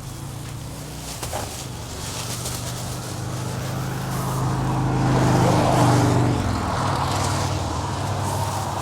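A motor vehicle's engine running with a steady hum over a broad hiss of heavy rain. It grows louder to a peak a little past the middle, then eases off slightly.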